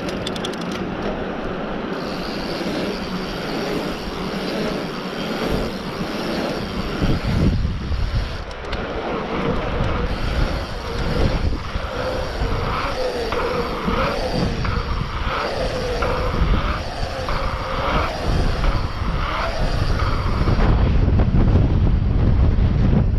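Mountain bike descending a dirt trail: wind rushing over the camera microphone and tyres rattling over dirt and roots, heavier from about seven seconds in. An unsteady, wavering hum comes and goes through the middle.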